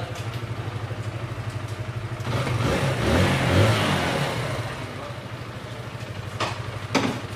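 Kawasaki KLX 150S's carbureted, air-cooled single-cylinder engine idling, then revved once about two seconds in, its pitch rising and then settling back to idle.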